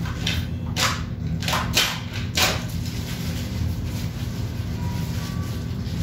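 A steady low hum, with a few short sharp knocks or clicks in the first two and a half seconds, the loudest about a second and two and a half seconds in, and two faint short tones about five seconds in.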